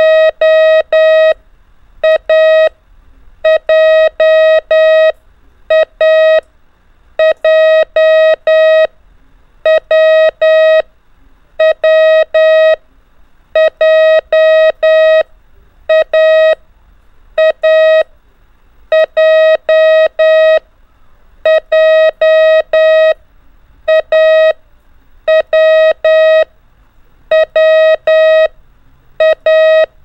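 Morse code practice tone, a single steady mid-pitched beep keyed in short dits and long dahs, sending the letters A, W and J (·–, ·––, ·–––) over and over at an even pace.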